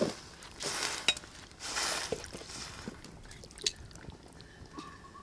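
Water sloshing and trickling in a metal wok full of small sausages, with a few light clinks and ticks.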